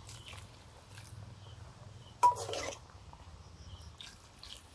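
Hot water being poured from a steel bowl into an aluminium wok of chicken, a faint splashing pour. About two seconds in there is a single sharp metallic clink from the steel bowl.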